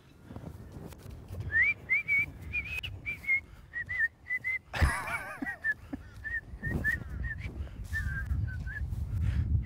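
A string of short, high whistled notes, roughly two a second, with a louder warbling call about halfway through, over a low rumble.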